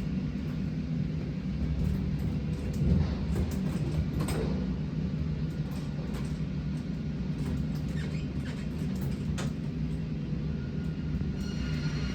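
Band sawmill machinery running with a steady low hum, with a few sharp knocks and clanks along the way. Near the end a higher whine starts.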